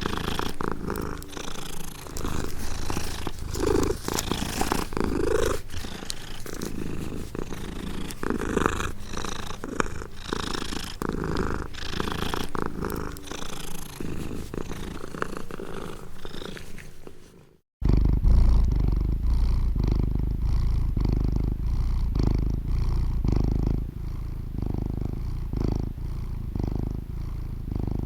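Domestic cat purring close to the microphone, with short wet licking clicks over the purr. About 17 seconds in the sound cuts out for a moment and resumes as a deeper, heavier purr with a steady pulsing rhythm.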